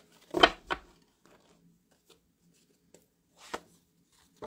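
Oracle cards handled over a table: two sharp taps about half a second in, then quiet, then a few softer taps and card slides near the end as a card is drawn from the deck.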